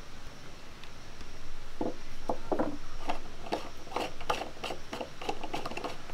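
A brass murukku press being put together by hand. From about two seconds in comes a quick run of small clicks and scrapes as the top is fitted and screwed onto the cylinder.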